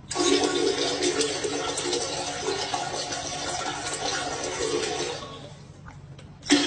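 Steady rushing splash of liquid into a toilet bowl that starts abruptly, fades out about five seconds in, and starts again abruptly just before the end.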